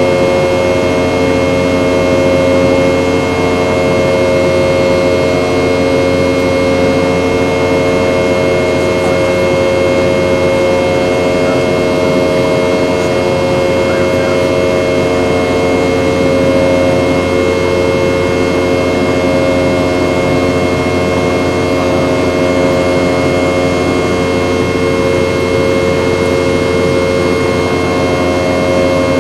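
Inside the cabin of a Boeing 717-200 in flight: the steady drone of its rear-mounted Rolls-Royce BR715 turbofans, with several fixed engine tones over a constant rush of air.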